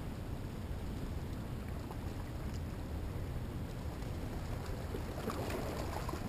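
Steady rush of river current flowing past rocks, with wind rumbling on the microphone.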